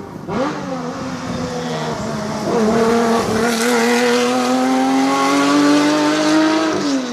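Classic rally car's engine under load on a stage, its note rising, dipping briefly about two and a half seconds in, then climbing steadily before cutting off suddenly near the end.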